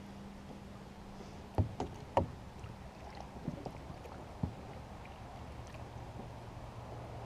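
A few sharp knocks, like gear bumping inside a small fishing boat: three close together about a second and a half in and a lighter one near the middle. Under them runs a faint steady hum that drops to a lower pitch partway through.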